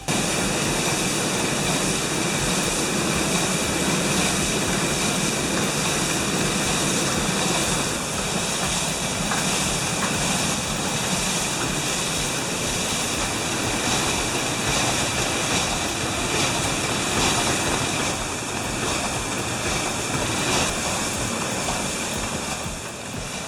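Steady rushing of fast-flowing water, an even roar that holds at one level throughout.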